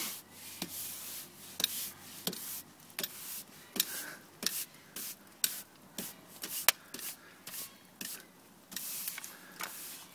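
A brush sweeping out the floor of a fire-heated pizza oven in short, repeated strokes, with a few sharper knocks among them.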